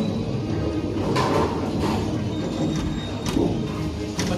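Bowling alley sounds: a steady low rumble of balls rolling on the lanes, with several sharp knocks and clatters of balls and pins in a large echoing hall.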